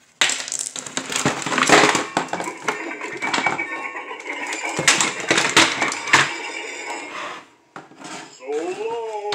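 Plastic toy playset pieces and cardboard packaging being handled: rustling, scraping and clicking knocks as parts are pulled from the box and set down. Near the end, a short rising-then-falling vocal sound.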